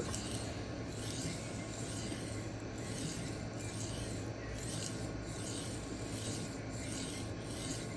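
D2 steel knife blade sharpened freehand on a 1x6-inch Xarilk diamond plate: steady rasping sweeps of the edge across the stone, a little over one stroke a second with a brief break at each turn.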